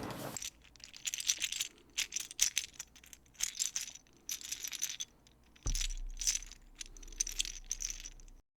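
Small plastic LEGO pieces clicking and rattling as they are handled, in several short bursts of clinks.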